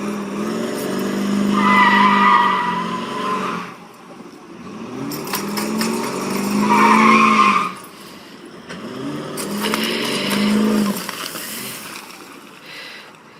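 A motor vehicle's engine revving up three times, each rise held for a second or two before dropping off, with a high squeal at the peak of the first two revs.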